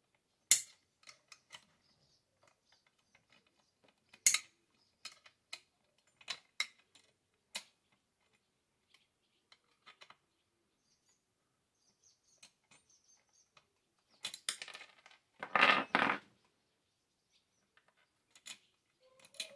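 Sharp metal clicks and clinks of an 8 mm wrench loosening the bolts that hold the inner bucking spike on a Stihl MS 462 chainsaw, with a louder, longer clatter of metal about fifteen seconds in.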